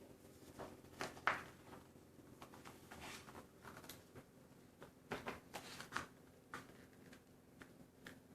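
Faint, irregular clicks and short rustling scrapes from small objects being handled to make a story's sound effects.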